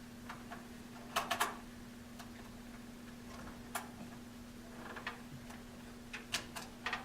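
Sharp clicks and taps of computer parts being handled and fitted during a CPU and heatsink reinstall, coming in small clusters, three close together about a second in and several more near the end, over a steady low hum.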